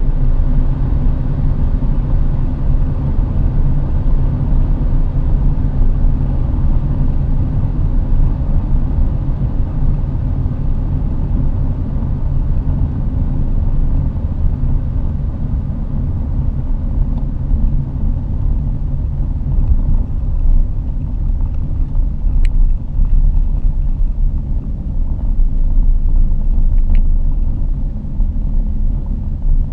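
Dodge Charger running flat out at a steady high speed, heard from inside the cabin: a loud, even rumble of engine, tyres and wind noise with a steady pitch. Two short clicks sound late on.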